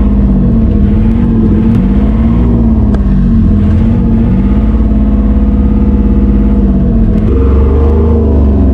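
Enclosed lifeboat's diesel engine running under way, heard loud from inside the cabin, its pitch rising and falling slightly with the throttle. The engine note shifts about seven seconds in.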